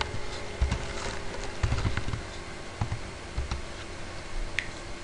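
Typing on a computer keyboard: a run of irregular keystroke clicks with a few duller low knocks in between.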